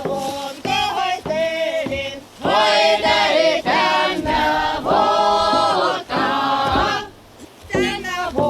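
A group of voices singing an Izhorian wedding folk song together, the song sung as the bride is handed over to the matchmakers. The singing grows louder and fuller about two and a half seconds in, and breaks briefly about seven seconds in.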